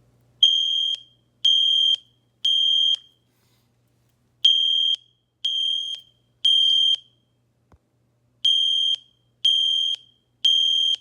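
Genesis fire alarm horn sound played through a tablet speaker: a high steady tone in three groups of three half-second blasts with a pause between groups, the temporal-three evacuation pattern.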